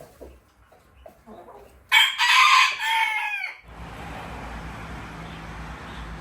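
A rooster crows once, loud, about two seconds in, the call dropping in pitch as it ends. After it a steady low hum and hiss takes over.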